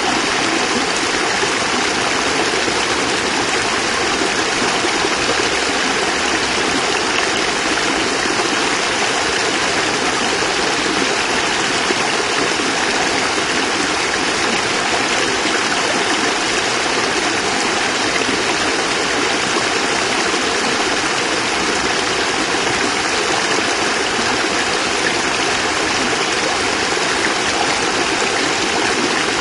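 Small cascade of water splashing and rushing steadily over rocks, an even, unbroken sound.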